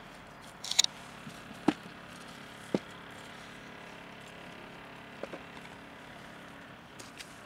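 A clip-lid plastic food container being handled and opened: a brief rustle, then two sharp plastic clicks about a second apart, and a few softer clicks a couple of seconds later as the lid comes off the dry cat food. A steady low hiss lies underneath.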